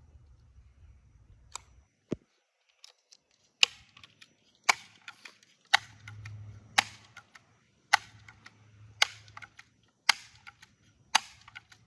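Ruger BB gun firing a quick string of sharp shots, about one a second, eight in a row after a couple of fainter clicks.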